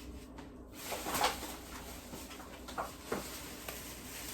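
Handling noise of packaged groceries being picked up and moved: a rustling, scraping burst about a second in, then a few shorter rustles and scrapes.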